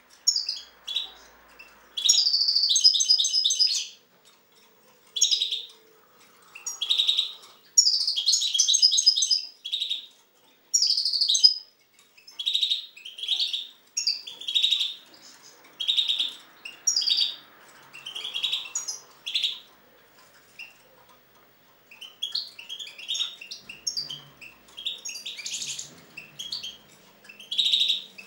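European goldfinch singing: bursts of rapid, tinkling twittering, broken by short pauses. Partway through it switches to a string of separate notes about once a second, then returns to varied twittering near the end.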